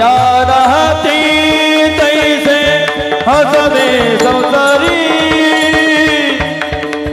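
Male voice singing a melismatic Varkari kirtan melody (chal), with steady held accompanying tones and regular drum strokes underneath.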